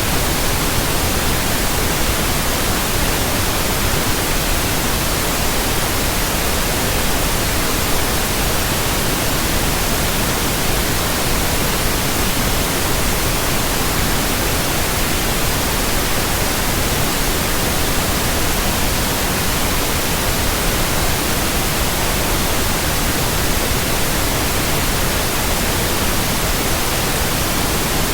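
Steady, unchanging white noise: an even hiss spread across all pitches, with no other sound.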